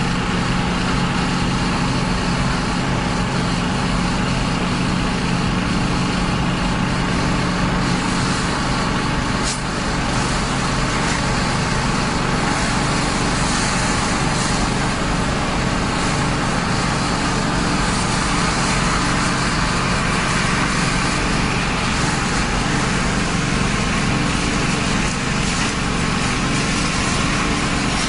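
Heavy diesel truck engine running steadily under a constant hiss of water spray; the engine's low note shifts about eight seconds in.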